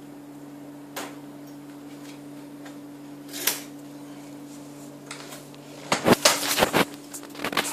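High chair frame tubes being handled and fitted together: a single click about a second in, a brief scrape a few seconds later, then a run of loud rattling, clattering knocks near the end as the tubes knock against each other. A steady low hum runs underneath.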